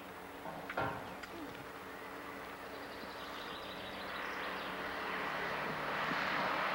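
A short knock about a second in, then a steady drone like a distant engine that grows steadily louder from about halfway through, as if something is approaching.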